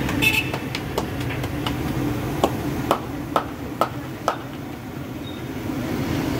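Puri dough being slapped and patted flat between bare palms: a run of sharp slaps, the five loudest coming about two a second in the middle, over a steady low rumble.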